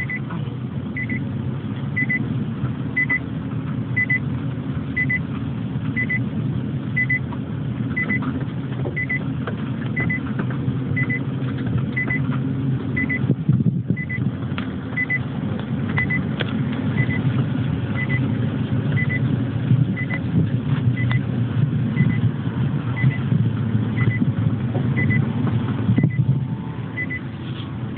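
A small car running at low speed, heard from inside the cabin: a steady engine and road rumble, with a short high electronic beep repeating about once a second until shortly before the end.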